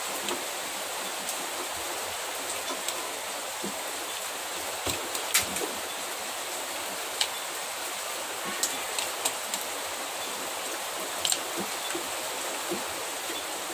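Steady, even hiss, with a few light clicks and taps scattered through it, the sharpest about five seconds in, as wires are worked and soldered onto a small amplifier board.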